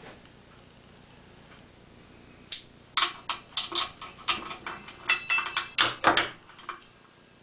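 Steel bolts and tools clinking and clattering as they are handled and set down on a workbench: a quick string of about a dozen sharp metallic knocks starting about two and a half seconds in, a few of them ringing briefly.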